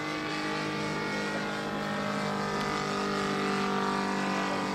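Engine of a large radio-controlled Salmson 2A2 scale biplane, running steadily in flight. Its pitch shifts slightly around the middle.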